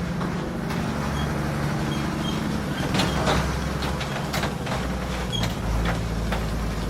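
Diesel skip lorry engine running with a low, steady note that shifts about halfway through, with several metallic clanks and rattles starting about three seconds in.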